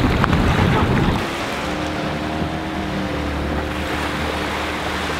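Wind buffeting the microphone over lapping shallow surf, cut off about a second in by a quieter steady motor hum with a few held tones.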